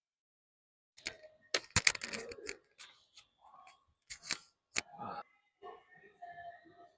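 A quick string of sharp clicks and knocks, loudest about two seconds in, with another short cluster around four to five seconds.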